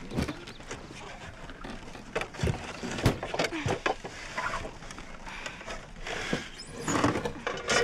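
Scattered knocks and clatter of wood as people handle the rails and boards of an old wooden farm wagon, with a few short higher sounds in between.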